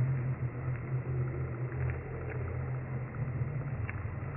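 Steady low engine-like rumble, with a few faint light ticks.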